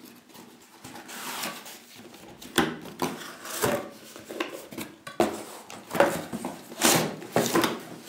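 A cardboard box being opened and handled by hand: flaps and cardboard inserts sliding, rubbing and scraping against each other in a string of short rustles and scrapes, busier and louder in the second half.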